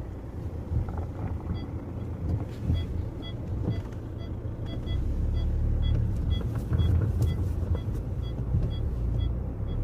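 Low, gusting rumble of wind on the microphone, with short high-pitched peeps repeating irregularly over it.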